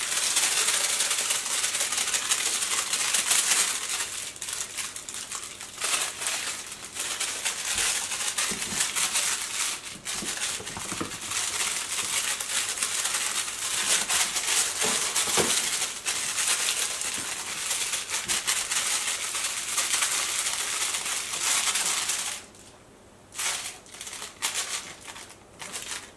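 Plush dog toy crinkling and rustling as it is shaken and tugged in play, a dense crackle that stops briefly near the end.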